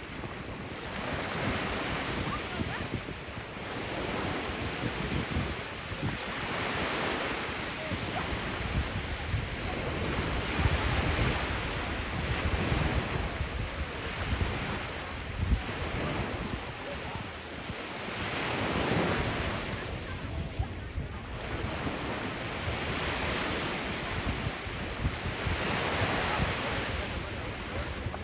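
Ocean surf washing onto a beach, the noise swelling and easing every few seconds as waves break, with wind buffeting the microphone.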